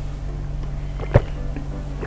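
A person gulping a drink from a plastic cup, one loud swallow about a second in, over background music with a steady low bass.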